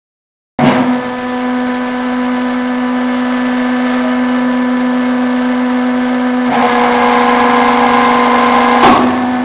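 Hydraulic power unit of a vertical single-beam log splitter running with a steady hum, while the ram lowers the splitting wedge. About two-thirds of the way through, the hum grows louder and richer. A brief sharp knock comes near the end.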